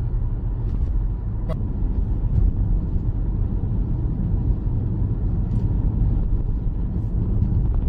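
Steady low rumble of a Toyota car on the move, engine and tyre noise heard from inside the cabin, with a few faint ticks.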